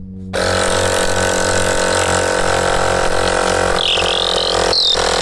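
VTOMAN X1 jump starter's built-in tire-inflator air compressor starting up about half a second in and running with a steady, even motor hum. A wavering high whistle joins briefly near the end.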